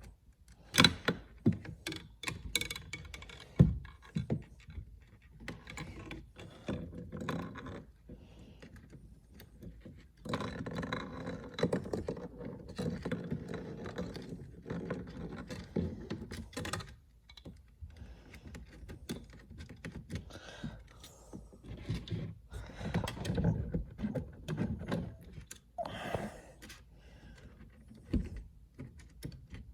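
Hands working wires and a zip tie down through a car's plastic interior door panel: scattered sharp clicks and knocks, with a long stretch of rustling scraping in the middle.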